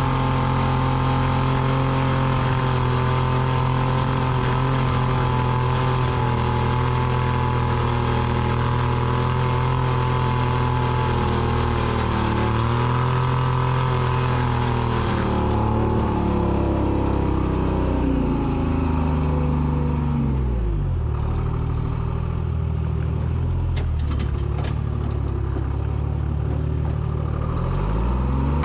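Treefarmer log skidder's diesel engine running steadily while it drags a chained hitch of logs. About two-thirds through, the revs drop away to a low idle, then climb again near the end.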